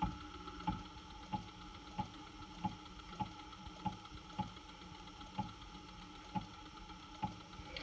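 CNC machine axis jogged in one-thousandth-of-an-inch steps: a short, faint click with each step, about one and a half a second, over a faint steady hum.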